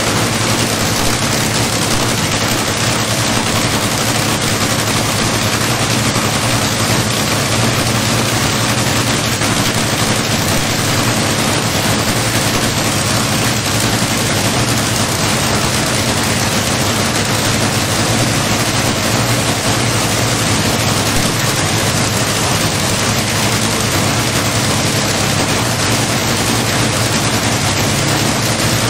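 A loud engine running at a steady speed with a dense, rapid crackle and no revving.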